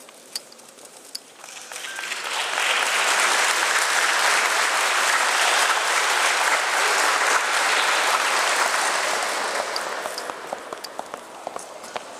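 Audience applauding, building up about two seconds in and dying away after about ten seconds. A few sharp taps of footsteps follow near the end.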